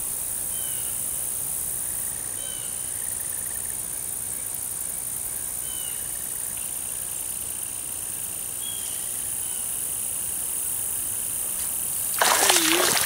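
Steady high-pitched insect buzz with a few short high chirps scattered through it. Near the end, a sudden loud splashing as a small largemouth bass strikes the spinnerbait at the bank and is hooked.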